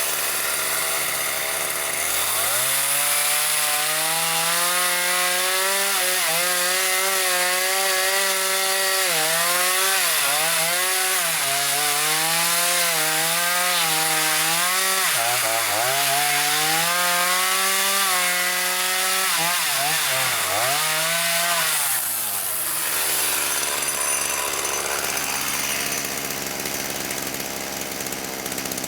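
Chainsaw cutting slab wood at high revs, its engine pitch dipping briefly several times as it works through the wood. About 22 seconds in, the steady engine note drops away, leaving a rougher, noisier running sound.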